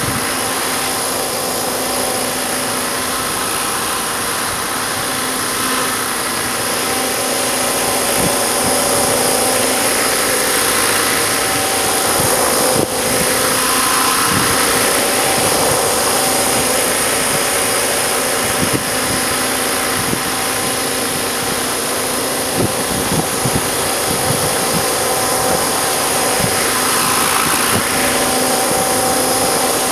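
Electric RC helicopter (Ikarus Eco 8 in a JetRanger scale body) hovering, a steady motor and rotor whine whose pitch wavers a little as it holds position. Gusts of wind buffet the microphone in low rumbles through the second half.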